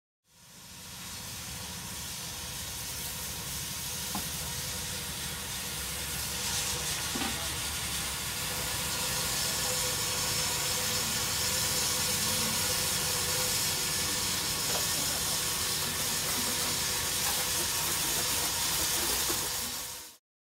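Water spraying hard from a hose spray wand onto a boat and its trailer: a steady hiss that slowly grows louder over the first several seconds and cuts off suddenly at the end.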